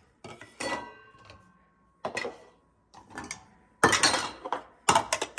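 Cups and dishes clinking and clattering as they are lifted out of a dishwasher's top rack and set down, in five bursts, the loudest about four seconds in; the first leaves a brief ringing tone.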